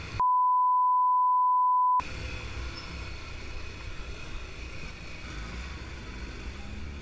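A steady high beep, a censor bleep, lasting about two seconds with all other sound cut out beneath it; it is the loudest thing here. After it, a motorcycle's engine runs steadily with road noise as the bike rides along in traffic.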